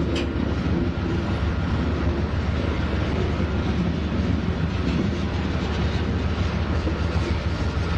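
Freight cars (gondola, covered hopper, tank car) rolling past on the rails: a steady rumble of steel wheels on track.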